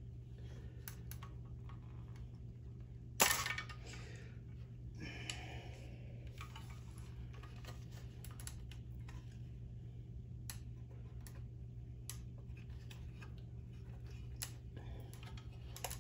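Small scattered clicks and tinks of a metal tool prying push-on wire connectors off a capacitor's terminals, with one sharp louder click about three seconds in and a brief scrape a couple of seconds later. A steady low hum runs underneath.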